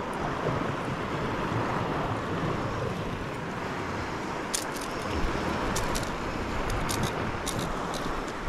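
Steady wind on the microphone over small waves lapping in shallow water, with a scatter of light, sharp clicks in the second half.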